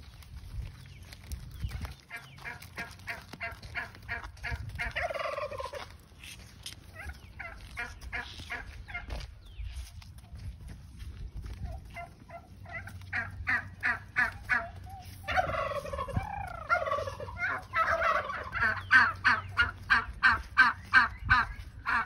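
Farm poultry calling over and over in runs of short, quick calls, with longer falling calls about five seconds in and again around sixteen seconds in. The calls are loudest near the end.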